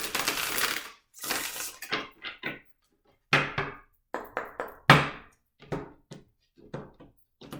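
Tarot cards being shuffled and handled: a brisk rustle of cards in the first second or so, then a run of short taps and slaps as the cards are handled and laid down.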